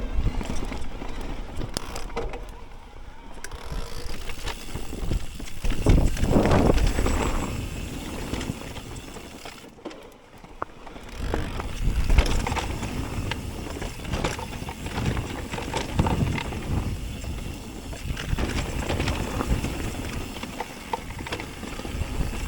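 Mountain bike riding down a rough trail: tyres rolling on dirt and the bike rattling and knocking over bumps, with louder stretches about six and twelve seconds in.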